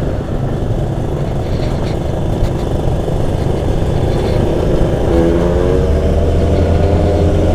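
Motorcycle riding with wind rumble on the microphone; about five seconds in, an engine note comes up and climbs slightly in pitch as it revs.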